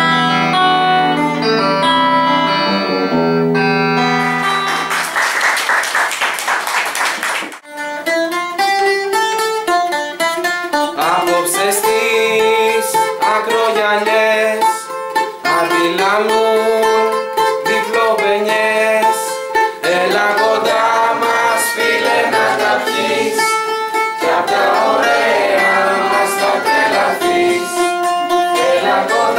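Stratocaster-style electric guitar playing held notes, then a few seconds of dense, noisy sound that cuts off abruptly. After that a bouzouki plucks a melody while a group of young voices sings along.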